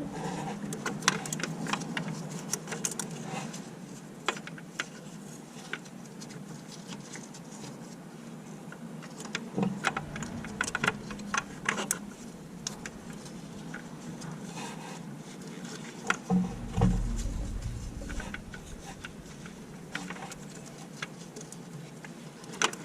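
Scattered light clicks and taps of hands and small metal parts being handled in a car's engine bay, with a dull thump about three-quarters of the way through, over a steady low hum.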